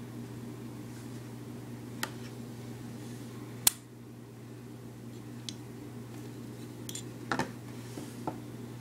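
Sharp clicks from a Glock 21 .45 pistol being handled, about six in all, the loudest about three and a half seconds in and a quick pair near the end, over a steady low hum.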